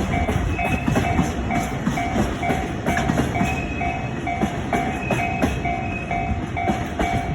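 Freight train of tank wagons rolling slowly past, a steady rumble with wheels clicking over the rail joints. A level-crossing warning bell rings throughout, about two strokes a second.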